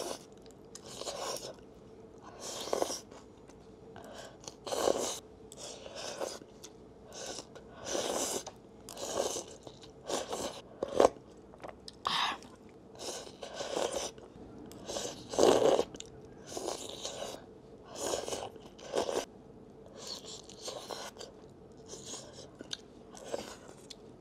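Close-miked eating of crab noodle soup (bún riêu cua): sips of broth from a spoon, slurps of rice noodles and chewing, a string of short wet mouth sounds about one a second.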